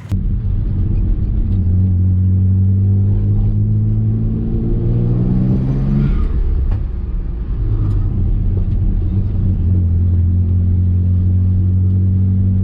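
Mitsubishi 3000GT VR-4's twin-turbo V6 engine running at fairly steady revs. The pitch climbs slowly, drops off sharply about six seconds in, then holds steady again.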